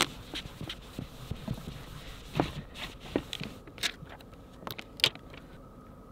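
Handling noise: scattered light clicks and taps, about ten in all, as a plastic junction box, its lid and a screwdriver are picked up and set down.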